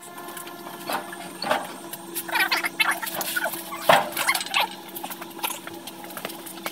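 Large rear tractor tire being pulled off the axle and wheeled across a concrete floor: rubber squeaking and scuffing with scattered knocks, and one sharp thump about four seconds in.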